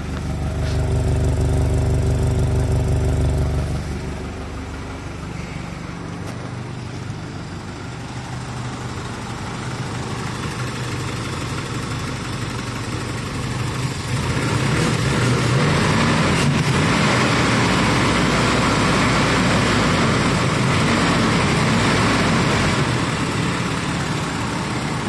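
1985 Toyota pickup's four-cylinder engine idling on its own shortly after a cold start, a little low, which the owner reckons at around 600 rpm. The hum is heavy for the first few seconds, drops back, then grows louder again from about halfway through.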